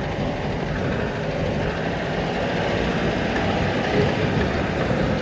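Jeep driving slowly on a rough gravel road, heard from inside the open vehicle: a steady rumble of engine and tyres on gravel.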